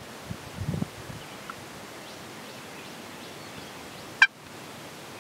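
A single short, sharp turkey call note about four seconds in, over a steady faint outdoor hiss, with a brief low rumble just under a second in.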